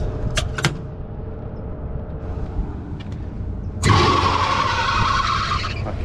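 Two sharp clicks as a York rooftop HVAC unit is switched on. About four seconds in, a sudden steady rush of air starts as the unit's blower kicks on.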